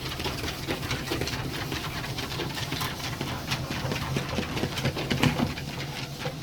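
Dog treadmill running at speed setting 4: a steady motor hum under the quick, even pattering of Staffordshire terriers' paws on the moving belt.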